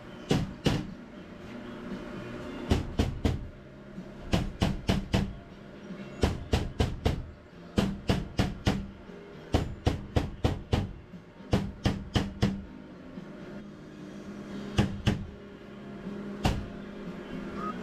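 Hammer taps on metal in quick bursts of two to six strikes with short pauses between, the way an electrician drives a 2-inch locknut tight onto a steel conduit nipple.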